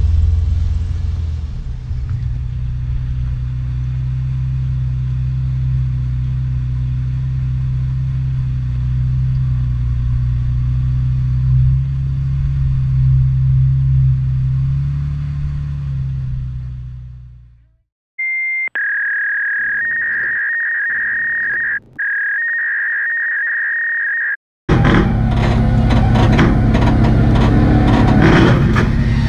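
Steady background music that fades out about two thirds of the way in. Then a steady high electronic tone runs with two brief breaks. Near the end an off-road vehicle's engine comes in, loud and running.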